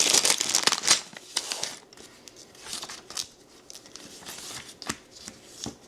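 Plastic bags of Lego pieces crinkling as they are handled and torn open, loudest in the first second, then quieter scattered crinkles and a few clicks.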